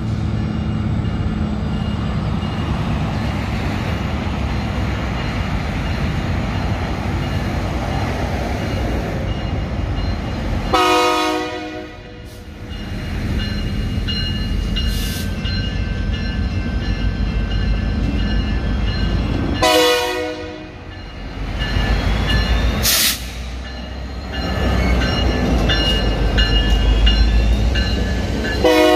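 Diesel locomotive engine running with a steady low rumble that grows louder near the end, and three short horn blasts about nine seconds apart. A thin high squeal of wheels on the rails runs through the second half.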